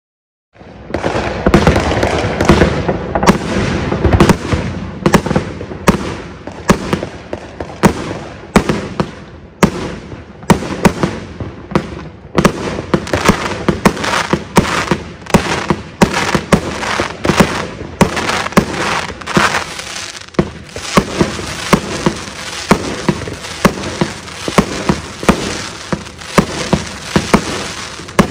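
A 200-shot, 500-gram consumer firework cake firing. The sound starts suddenly about half a second in, then goes on as a rapid string of sharp reports, about two a second, with steady crackle between them.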